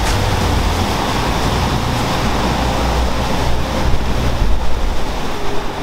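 A sport-fishing charter boat running under power: a steady low engine rumble under the rushing, churning water of its wake.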